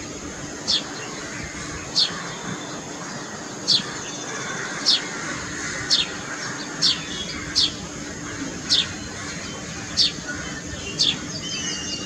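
A bird repeating a short, thin, high note that slides downward, about ten times at roughly one a second, over a steady high-pitched whine.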